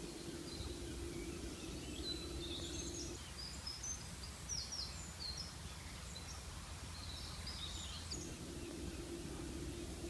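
Small birds chirping and calling over a steady low outdoor rumble. A faint low hum drops out from about three to eight seconds in, then returns.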